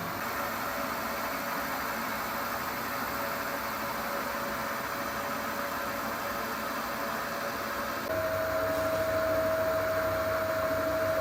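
Myford Super 7 lathe running steadily under power, a machine hum with faint whining tones. About eight seconds in it gets louder and a clear steady whine comes in and holds.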